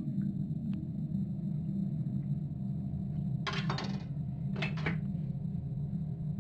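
Kitchen utensils clinking and clattering in two short bursts, about three and a half and four and a half seconds in, over a steady low hum.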